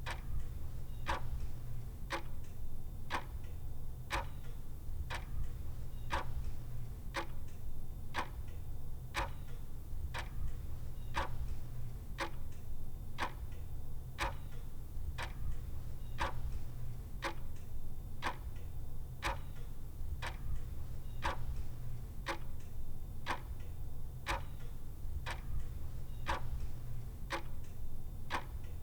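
A clock ticking at a steady, even pace, about two ticks a second, over a low steady hum.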